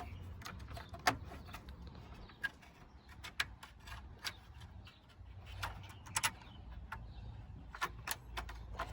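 Scattered light clicks and knocks of parts being handled and pressed into place around a car's radiator and condenser as lines and trim are refitted, over a low steady hum.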